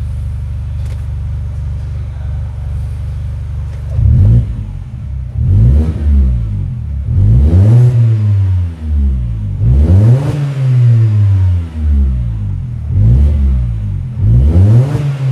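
Mini Cooper Convertible engine breathing through an aftermarket sports exhaust, heard from inside the cabin. It idles steadily for about four seconds, then is free-revved in Park about six times, each rev rising and falling back.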